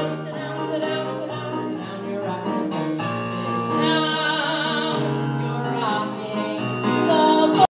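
A woman singing a show tune into a microphone with piano accompaniment.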